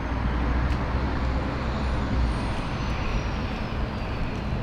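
City street traffic noise: a steady low rumble of a vehicle passing close by, with a faint high whine falling in pitch over the last two seconds.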